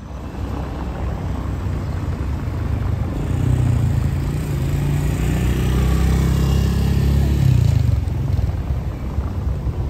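Street traffic: a motor vehicle's engine running close by, swelling to its loudest in the middle and easing off near the end.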